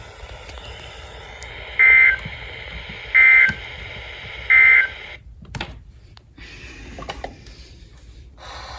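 Three short bursts of Emergency Alert System SAME data tones, each a harsh two-tone digital warble, about a second and a half apart: the End of Message code that closes an EAS broadcast. They sound over faint radio hiss.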